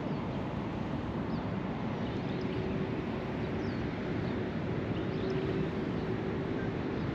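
Steady low outdoor rumble with a faint steady hum through the middle, and a few faint high chirps.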